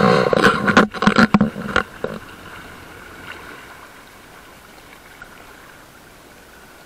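A burst of knocks and rubbing on an action camera's housing as it is jolted on its mount, lasting about two seconds, then a steady low hiss of lake water and wind around the boat.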